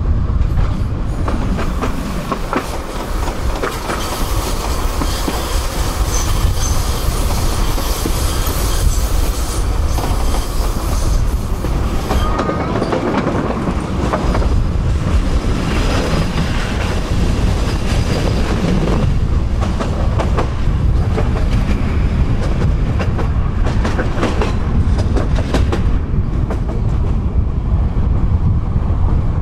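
Tram running along its rails: a steady heavy rumble with repeated clicking of the wheels over rail joints, and a couple of brief squeals.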